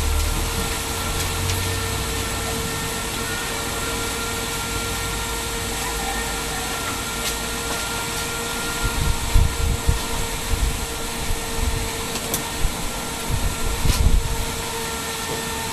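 Steady hiss and hum with a constant mid-pitched tone, like a running machine in the room. About halfway through, a run of low thumps and bumps joins it for several seconds.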